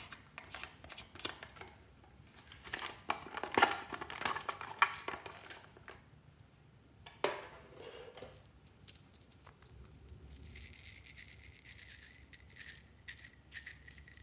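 Hands handling hard plastic objects, with scattered clicks and knocks in the first half. From about ten seconds in, tiny plastic beads pour out of a small vial into a palm as a dense, high, steady rattle.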